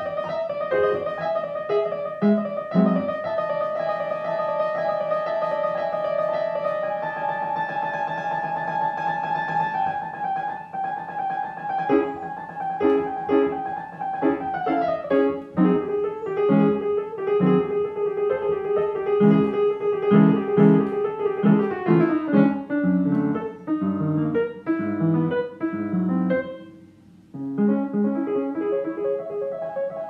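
Upright piano played solo: long stretches of fast, fluttering repeated notes over shorter chords below. The playing breaks off briefly near the end, then picks up again.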